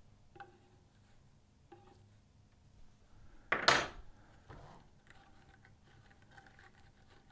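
Light metallic clinks from a Strauch Finest drum carder as the carded Dacron batt is worked off the drum's pins, with one loud, brief metal clank-and-scrape about three and a half seconds in and faint ticks after it.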